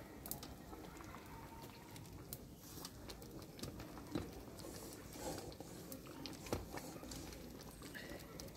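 Faint, irregular pops and ticks from thick fig jam boiling in large pots over a wood fire.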